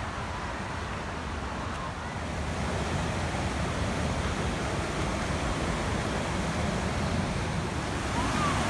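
Steady rushing of fast river water, growing a little louder after about two seconds.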